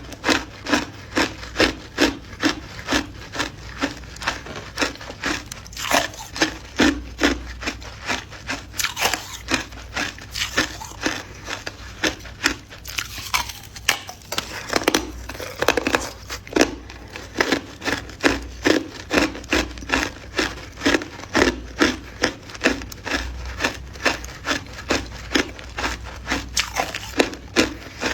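A person chewing ice close to the microphone, with crisp crunches in a steady rhythm of about two to three bites a second.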